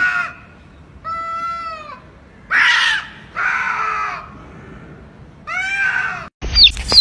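Cats yowling at each other in an aggressive standoff: a series of drawn-out yowls, each about a second long and arching up and down in pitch, with short gaps between them; the loudest comes about two and a half seconds in. Near the end the yowling cuts off abruptly to loud music.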